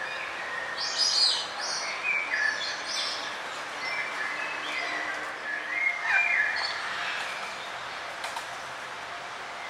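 Several songbirds chirping and whistling over a steady background hiss of forest ambience, with louder bursts of song about a second in and again near six seconds.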